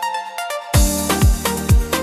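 Afro chill electronic dance music. A brief break of melodic notes without bass or drums gives way, about three quarters of a second in, to the full beat: a cymbal crash and deep kick drums falling in pitch, about two a second.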